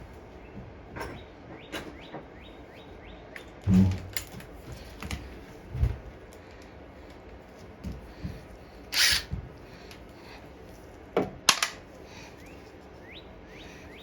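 Hand tools and metal parts being handled while working on a lawn mower: scattered clicks and clinks of a socket wrench, a heavier bump about four seconds in, a brief rustle about nine seconds in and sharp knocks near the end. Small birds chirp faintly.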